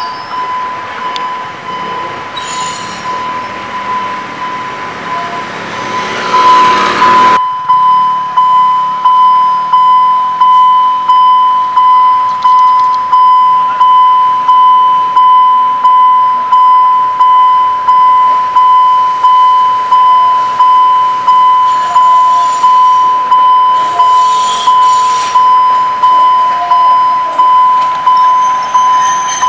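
Railway level-crossing warning signal ringing, a steady electronic tone pulsing about four times every three seconds, the sign that a train is due. A rushing noise covers it for the first seven seconds, then stops abruptly, leaving the signal louder.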